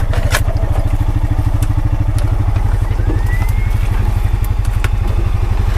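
Honda Pioneer 520 side-by-side's single-cylinder engine running steadily under way, with a few sharp knocks and clatters from the machine working over rough ground.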